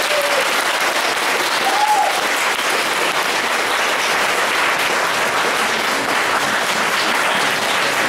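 Audience applauding, a steady even clapping at the end of a performance.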